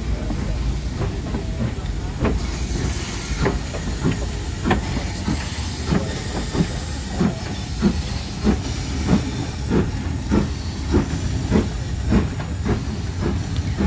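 Steam locomotive chuffing at a steady beat of nearly two exhaust beats a second, with steam hissing, the hiss strongest in the first half.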